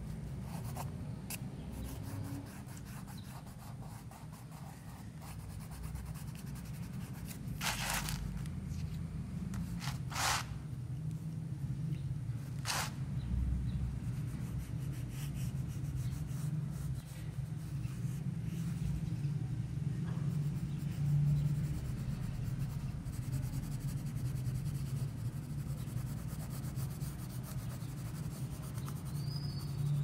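Graphite pencil scratching and rubbing on sketchbook paper as lines are drawn, with three louder, longer strokes in the first half, over a steady low hum.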